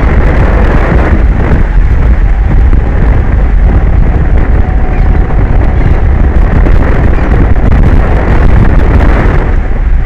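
Strong wind buffeting an exposed microphone: a loud, steady, deep rumbling roar that never lets up.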